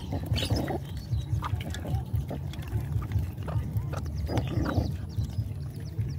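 Several dogs eating wet food together from a metal basin: steady wet slurping and chewing, with short bursts of snuffling about half a second in and again about four and a half seconds in.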